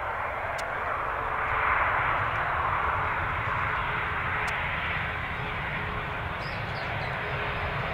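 Boeing 767-300 airliner's jet engines giving a steady rushing roar as it rolls out on the runway just after touchdown, growing louder about a second and a half in.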